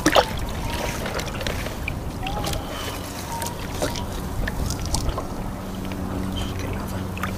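Wind on the microphone and sea water lapping around a kayak, with scattered small clicks as fishing tackle (clips, swivels and hooks on a trace) is handled.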